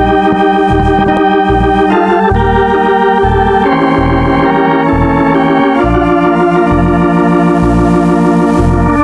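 Organ music: held chords that change every second or two over a steady walking bass line.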